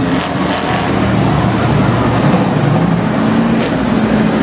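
Engines of show vehicles, among them a monster truck, running as they drive around the arena floor. The pitch shifts up and down.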